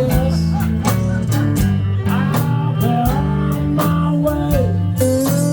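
Blues band playing: a guitar line with bent, sliding notes over a steady bass and a regular drum beat.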